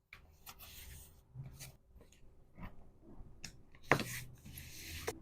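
Packaging being handled by hand: short rustles of wrapping material and scattered light clicks and taps, with a sharper click about four seconds in followed by a longer rustle.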